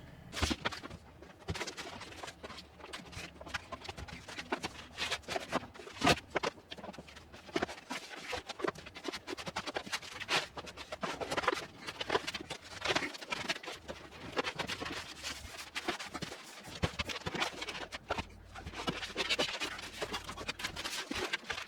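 Irregular knocks, clicks, scrapes and rustles of hoses, a drain pipe and a cable being pushed and worked through a hole in the side of a cabinet.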